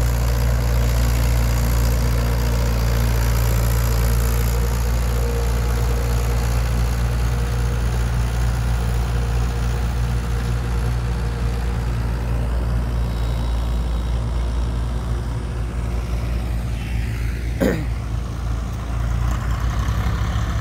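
Mahindra 575 DI XP Plus tractor's four-cylinder diesel engine running steadily while pulling a rear-mounted implement through soil. A short rising sweep cuts in briefly about three-quarters of the way through.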